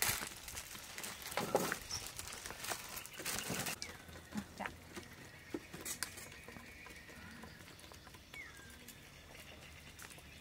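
Light clicks and taps of thin bamboo skewers being pushed through raw chicken drumsticks and knocking on a wooden chopping board. The taps come thick in the first few seconds, then thin out to scattered clicks.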